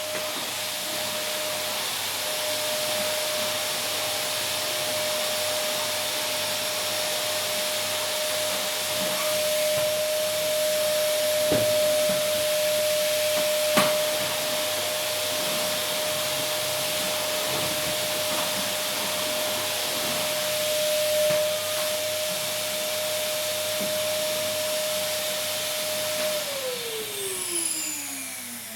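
Vacuum cleaner running steadily: a broad rushing hiss with a steady motor whine. About 26 seconds in it is switched off, and the whine falls in pitch as the motor winds down. A single sharp click about halfway through.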